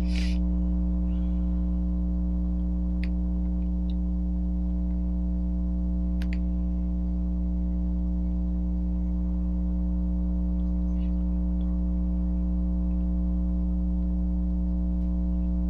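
Steady electrical mains hum, a low buzz with a stack of higher overtones, holding at one level throughout, with two faint clicks about three and six seconds in.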